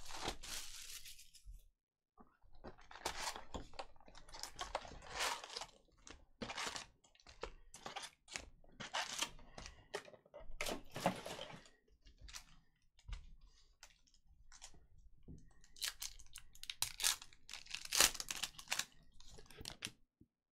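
Cardboard card box and foil pack wrappers being torn open and crinkled by hand, in irregular bursts with short pauses.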